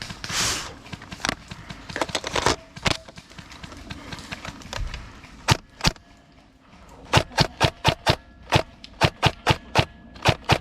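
Airsoft gun firing: scattered single shots and scrapes, then from about seven seconds a fast, even run of sharp shots, several a second.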